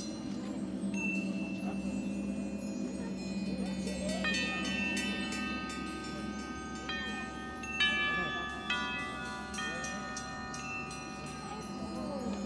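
Marching band front ensemble playing a soft opening: shimmering wind chimes, then sustained ringing bell-like mallet notes entering in layers about four and seven seconds in, over a low steady hum.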